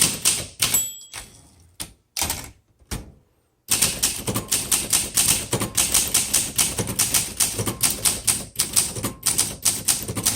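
1962 Olympia SM7 manual typewriter being typed on: a few separate key strikes, then quick steady typing from about four seconds in, several sharp clacks a second with a short pause near the end.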